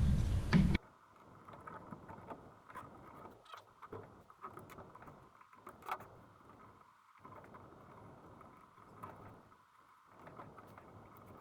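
Rubber mounting spacers being pried out of a motorcycle exhaust's mounting bracket with a flathead screwdriver: faint scattered clicks and short scrapes. A louder sound cuts off abruptly under a second in.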